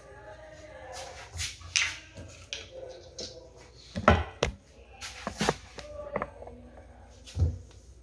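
Handling noise: a series of sharp knocks and clatters, the loudest a cluster about four seconds in, with a few more scattered through the rest.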